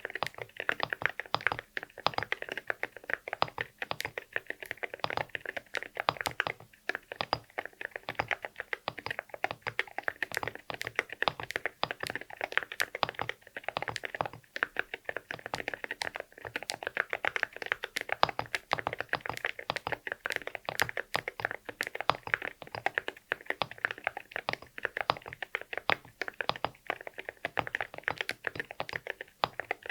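Continuous fast typing on an Akko MU01 mechanical keyboard fitted with Akko Rosewood linear switches and Cerakey ceramic keycaps: a dense, uneven stream of keystrokes.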